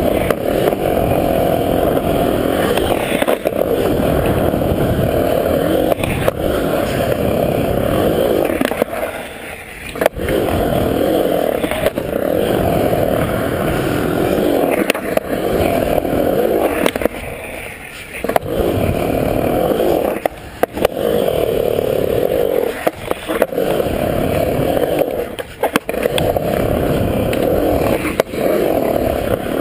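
Skateboard wheels rolling on smooth concrete in a skatepark bowl, a loud steady rumble. It is broken by a few short lulls and sharp clacks of the board.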